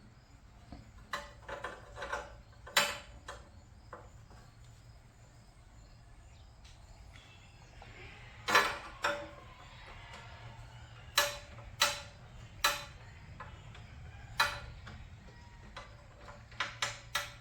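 Scattered sharp clicks and knocks of small metal parts and hand tools being handled while a part is fitted back into a small engine's carburetor, some in quick pairs and a cluster of several near the end.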